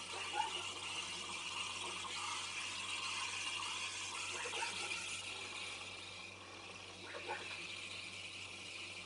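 Panarello steam wand of a Gaggia Gran Prestige espresso machine frothing milk in a stainless steel pitcher: a steady hiss with a few brief squeaks.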